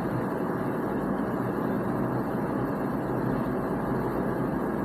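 A steady low rumble of background noise that does not change.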